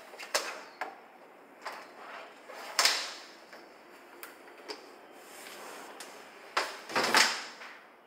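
Clothes being tipped out of a plastic laundry basket into a top-loading washing machine: rustling fabric and light knocks of the basket, with a louder handling clatter about three seconds in and again about seven seconds in.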